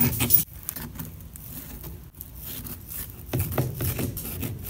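Knife cutting through a baked sweet potato pie in its pan, with soft scraping and small knocks as the blade meets the pan, busier and louder from about three seconds in.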